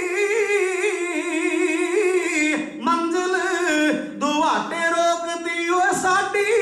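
A man singing a Punjabi ballad: he holds one long note with a wide vibrato for about two and a half seconds, then goes on in shorter sung phrases.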